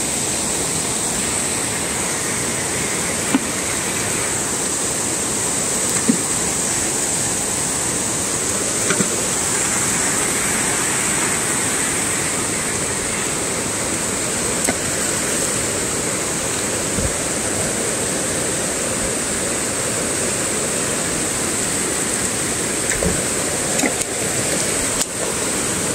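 Rushing water of a stream running steadily, with a few light knocks now and then.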